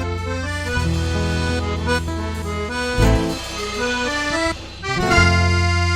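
Chamamé played on accordion over a deep bass line, held chords changing about once a second, with a short drop in loudness about three quarters of the way through.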